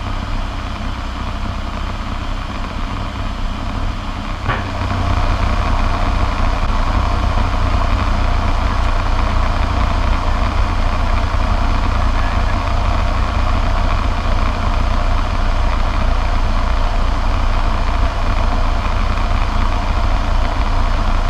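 Cabin noise of a Cessna 208B Grand Caravan in flight, heard from the cockpit: the PT6A turboprop engine and propeller drone steadily, with several steady tones over a deep rumble. After a brief click about four and a half seconds in, the drone runs a little louder.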